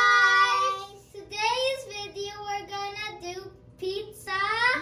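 A child's voice singing a short melody: a long held note, then a run of short stepped notes, rising again near the end.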